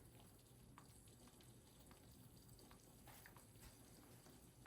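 Very faint crackle of eggs frying in butter in a pan: scattered soft pops over a low steady hum.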